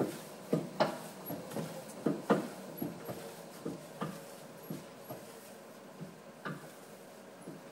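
30-year-old spiral dough mixer running slowly on a variable speed drive, its spiral hook slapping the dough in the bowl in a rhythm of dull thuds over a faint motor hum. The thuds come about three a second at first and space out to about two a second as the speed is turned down.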